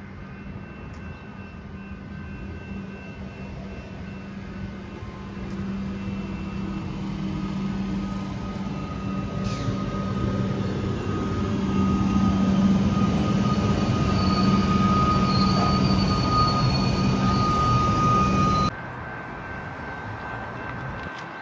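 Suburban electric multiple-unit train coming in on the rails, growing steadily louder with a low steady hum and a thin steady high whine. The sound cuts off abruptly near the end, leaving a quieter steady background.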